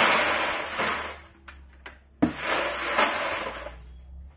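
Rocks poured from a plastic bucket into a plastic crate: a rush of stones that dies away about a second in, a few separate clicks, then a second, shorter pour starting sharply about two seconds in.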